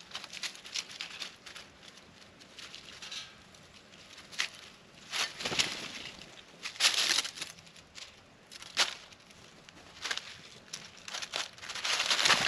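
Irregular rustling, scratching and tapping, several short bursts with quiet gaps between, a few longer ones lasting about half a second: birds and a squirrel picking over peanuts on a plate.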